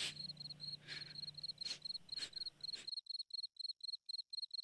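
Cricket chirping steadily, about five short pulses a second. A faint low hum and a few brief soft noises sit under it at first, and about three seconds in they cut out abruptly, leaving the cricket alone.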